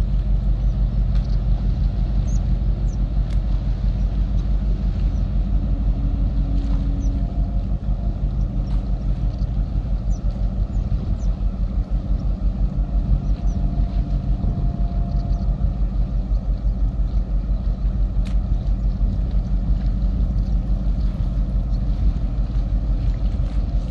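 A steady low rumble whose loudness flutters quickly and unevenly, with a few faint, brief higher tones.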